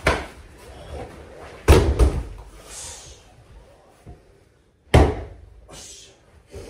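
Heavy thuds and slaps on a padded martial-arts mat as a man is taken down with a half shoulder throw and breaks his fall. There is a sharp impact at the start, a loud landing thud a little under two seconds in, and another sharp slap about five seconds in.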